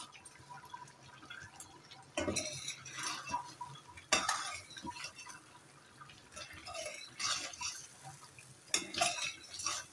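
A metal spoon scraping and clanking against a steel karahi as chicken pieces and green chillies are stirred and turned. It comes in several bouts, with a sharp knock about four seconds in.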